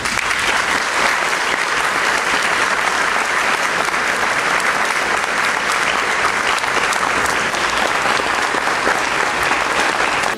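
Large audience clapping steadily and evenly: a sustained round of applause given as a tribute.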